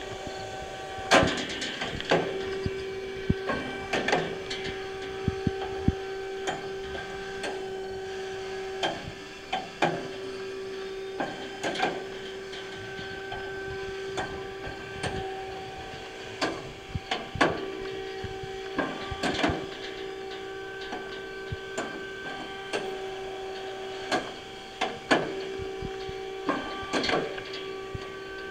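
Slab saw running: its electric motor and hydraulic pumping unit give a steady hum, with frequent irregular knocks and rattles from the machine.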